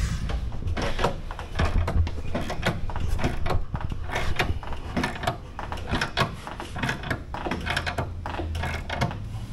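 Scattered clicks and metallic clanks of hand tools working on a 2008 Honda Gold Wing's rear wheel and exhaust hardware, taken apart for a rear tire change, over a steady low hum.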